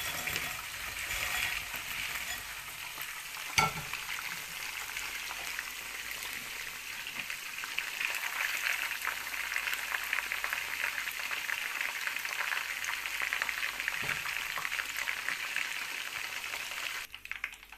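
Chicken wings deep-frying in hot oil in a pan, a steady crackling sizzle. A single sharp knock sounds about three and a half seconds in, and the frying cuts off suddenly near the end.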